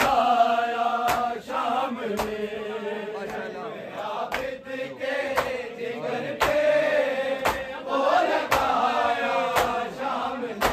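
A group of men chanting an Urdu noha (Shia mourning lament) in long, slowly bending lines, kept in time by a steady beat of chest-beating (matam) about once a second.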